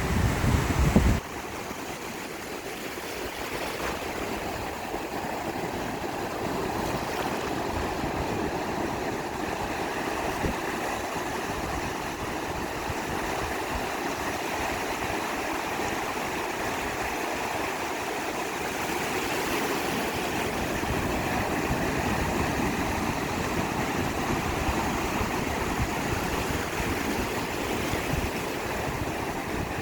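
Ocean surf washing steadily on the shore, an even rushing sound. About a second in, a low rumble cuts off suddenly.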